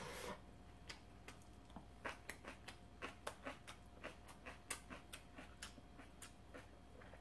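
Faint, irregular crunchy clicks of chewing, about two or three a second: a mouthful of kimchi sushi being chewed close to the microphone.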